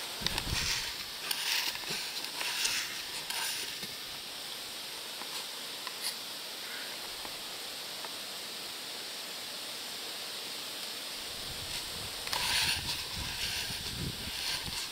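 Wind in the trees outdoors: leaves rustling in short gusts over a steady high hiss, with wind buffeting the microphone at the start and again in the last few seconds.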